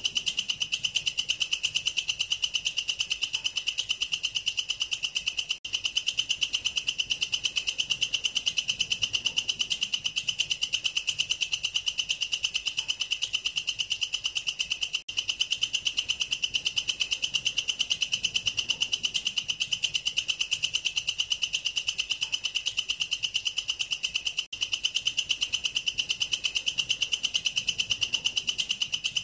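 Katydid (belalang kerek, a bush cricket of the family Tettigoniidae) singing a loud, shrill, rapidly pulsed trill that goes on without let-up, except for three momentary breaks spaced about nine to ten seconds apart.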